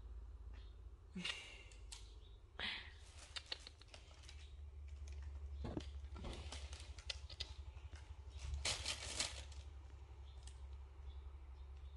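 Faint rustling and scattered soft clicks as a litter of young kittens shuffles and squirms on a fleece blanket in a cardboard box, busiest about nine seconds in, over a low steady hum.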